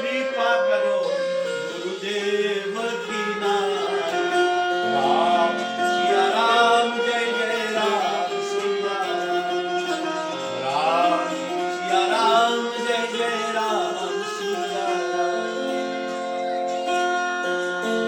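Devotional bhajan music: a voice singing a wavering, gliding melody over steady held instrumental notes.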